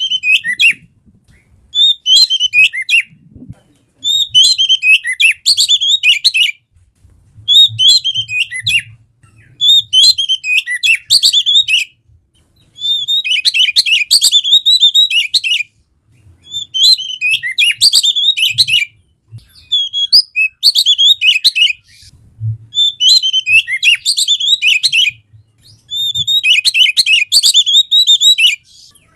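Oriental magpie-robin (kacer) singing in quick, varied, high-pitched phrases, about ten in a row, each a second to a few seconds long with short pauses between.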